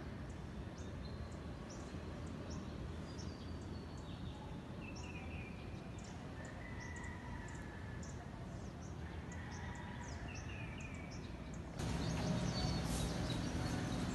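Outdoor city ambience: a steady low rumble of distant urban noise with small birds chirping over it, short high chirps repeating every second or so. About twelve seconds in it changes abruptly to louder street noise.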